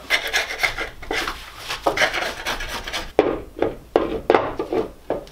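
Irregular metallic clinking and scraping as a new cast spindle assembly is handled and fitted against the steel underside of a riding mower's deck, with a few sharper knocks in the second half.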